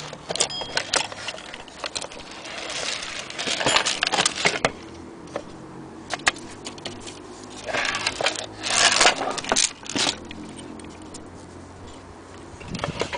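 Clinks, rattles and scrapes of old clock parts being handled: the metal movement, loose chains, bezel glass and wooden case are moved about in several short bunches.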